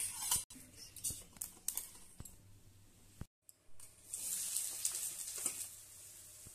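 Chopped onions hitting hot oil in a steel kadhai and sizzling, starting about four seconds in and dying down within two seconds. Before that, a few light clicks.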